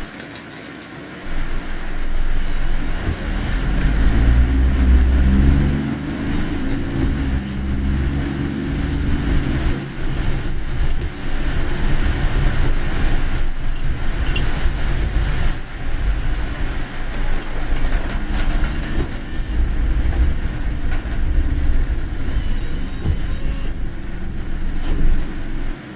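Car on the road in a typhoon: steady engine and road noise, with the engine pulling harder for a few seconds near the start.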